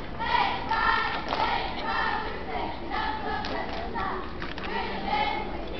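Young cheerleaders shouting a chant together in short rhythmic phrases, with thuds of claps and stomps.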